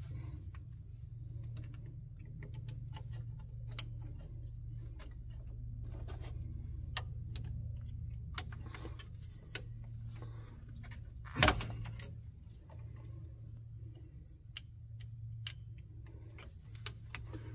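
Metal drum-brake springs, hardware and hand tools clicking and clinking as the parts are worked into place, some clicks ringing briefly, with one louder clack about eleven and a half seconds in. A steady low hum runs underneath.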